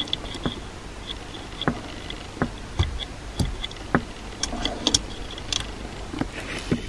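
Hand tools clicking and knocking against metal while the car's shifter and gearbox cradle are worked on: irregular sharp clicks about one every half second to second, over a steady background hum.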